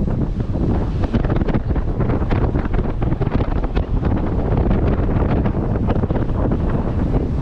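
Wind buffeting the microphone of a camera riding on a moving bicycle: a loud, steady low rumble that swells and dips in gusts.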